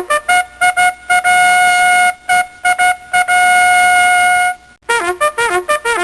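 Bugle sounding a call: quick repeated notes on one pitch, two long held notes, then after a short break near the end a fast run of notes that slide down in pitch.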